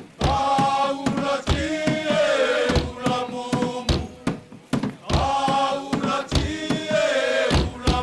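A group of voices chanting a Futunan mako dance song in sung phrases, with sharp percussive strikes marking the beat.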